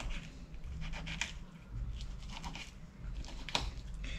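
Knife blade scraping through a small pejerrey as it is filleted along the backbone and ribs: a string of faint, short scratches and clicks.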